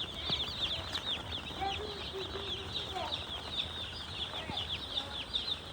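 Domestic chicks peeping together: a continuous stream of many short, high, overlapping downward chirps, with a few lower calls from an adult chicken mixed in.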